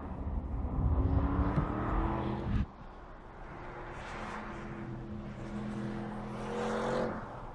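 2020 Audi RS6 Avant's twin-turbo 4.0-litre V8 accelerating hard with rising pitch, cut off abruptly about two and a half seconds in. The engine then runs on more quietly and rises in pitch again near the end.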